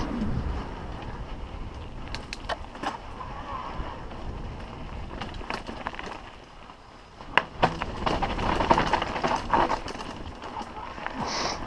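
Mountain bike rolling down a dirt and rock trail: tyre noise, wind on the helmet-mounted camera, and irregular knocks and clatter from the bike over rough ground. The rattling is heaviest about seven to ten seconds in, on a rocky section.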